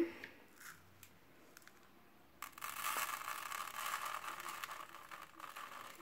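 Granular laundry detergent (Spee Megaperls) rustling in a plastic measuring scoop and pouring out: a steady rustling hiss that starts suddenly a couple of seconds in and fades near the end.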